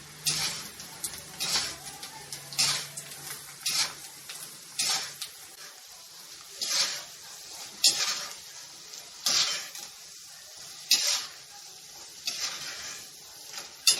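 Peanuts frying in hot oil, stirred with a metal spoon that scrapes against the pan in repeated strokes about once a second, over a faint sizzle.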